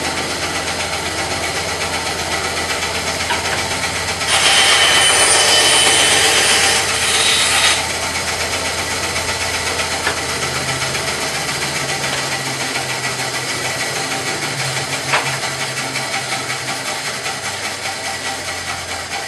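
Woodfast three-phase bandsaw running. A few seconds in, its blade cuts through a board for about three and a half seconds, much louder while cutting. It then runs free again, its level slowly falling near the end.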